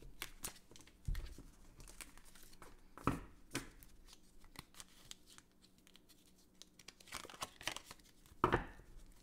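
Tarot cards being gathered up off a table and handled: scattered soft taps, slides and brief papery swishes, the loudest about a second in, at three seconds and near the end.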